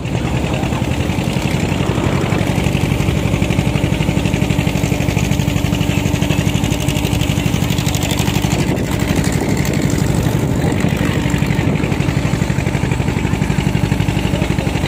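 The engine of a small boat running steadily under way, with a fast, even throb.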